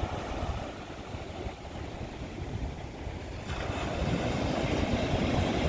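Seaside wind and water noise: a steady low rumble that turns louder and brighter about three and a half seconds in.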